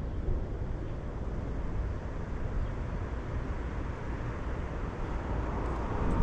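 Steady low rumble of wind on the microphone over the background noise of a city.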